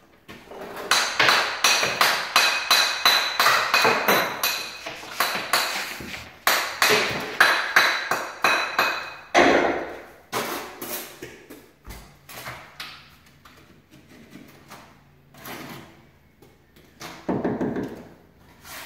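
A hammer striking natural stone to trim and shape it, rapid ringing blows about three a second for several seconds, then slower, scattered knocks.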